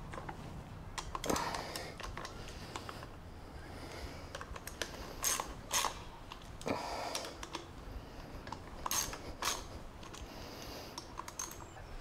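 Socket ratchet with an 8 mm socket clicking in short runs as the bolts of a motorcycle handlebar control clamp are tightened, with small metallic knocks and taps of the tool on the clamp.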